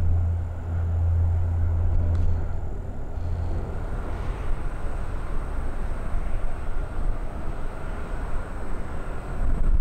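Distant jet airliner engines running: a steady rush of noise, with a deep low rumble that fades out about three and a half seconds in.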